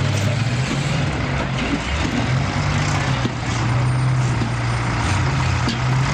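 Heavy loader's engine running steadily while it holds a wrecked car up in the air, its low hum wavering slightly in pitch.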